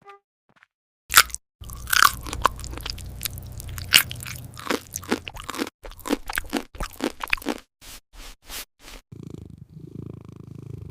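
Crisp crunching sounds, like biting and chewing, in a rapid irregular run over a low hum. They thin out after about eight seconds.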